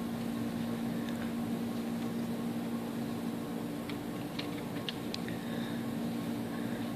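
Quiet room tone: a steady low hum with an even hiss, and a few faint ticks around the middle.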